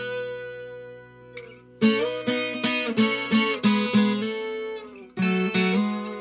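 Acoustic guitar strumming chords as the instrumental introduction to a song. A chord rings out and fades for about a second and a half, then a run of strokes comes, and after a brief pause the strumming starts again near the end.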